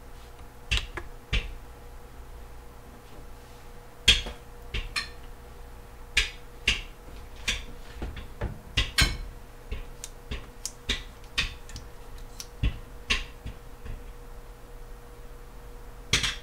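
Irregular sharp clicks and knocks of dishes and utensils being handled at a kitchen counter and sink, about twenty in all, over a faint steady hum.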